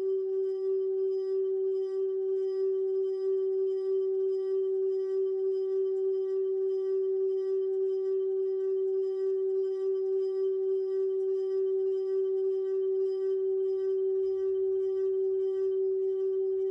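Singing bowl ringing as one steady, unbroken tone with a slight regular waver and a ladder of fainter higher overtones above it.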